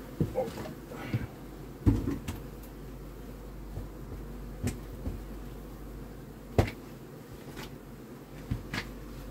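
Wooden beehive boxes being lifted and set down: scattered wooden knocks and bumps, the loudest about two seconds in and another just before seven seconds, over faint steady buzzing of bees.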